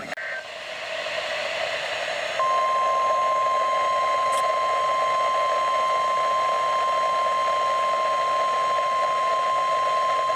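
NOAA Weather Radio's 1050 Hz warning alarm tone, one steady unbroken tone sent during the weekly test to set off weather alert receivers, heard over radio static. The tone comes in about two seconds in, after a stretch of static hiss, and holds to the end.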